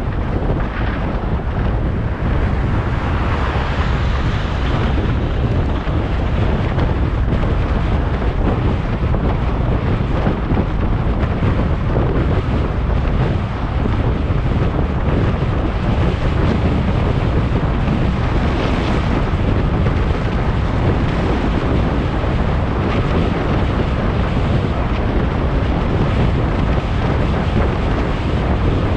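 Strong wind buffeting the microphone: a loud, steady rumbling roar with brief surges.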